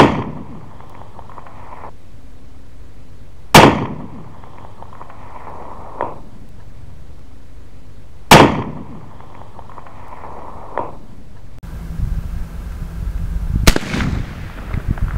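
Three shots from a Sharps rifle in .45-120, each a loud sharp report with a short fading echo, the second about three and a half seconds after the first and the third about five seconds after that. A faint tick follows each shot about two seconds later. Near the end the background turns to a rougher, gusty rumble with one more sharp report.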